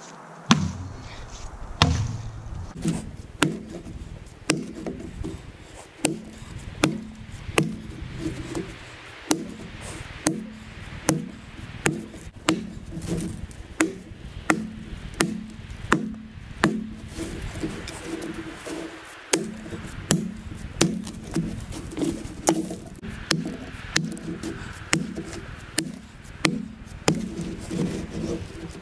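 Axe chopping through a thin, knotty log, blow after blow in a steady rhythm of roughly one to two strikes a second, each a sharp woody chock.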